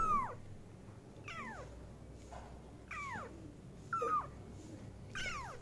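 Young kittens meowing repeatedly: about six short, high calls, roughly one a second, each sliding down in pitch.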